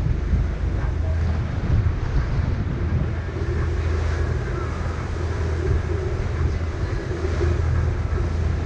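Boat engine running steadily under way, a constant low hum, with wind on the microphone and water rushing past the hull.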